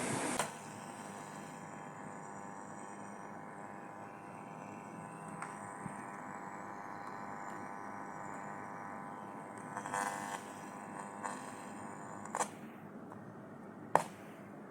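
Faint steady electrical hum made of several even tones, broken by a few sharp clicks about ten, twelve and fourteen seconds in.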